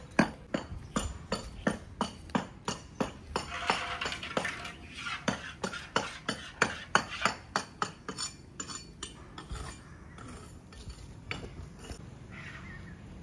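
A run of sharp, light clicks or clinks, about two to three a second, thinning out and fading near the end.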